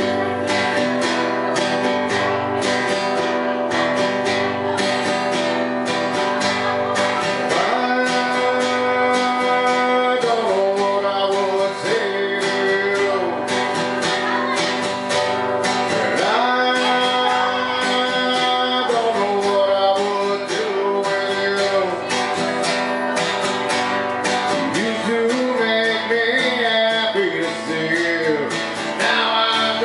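Acoustic guitar strummed steadily, with a man singing over it at times.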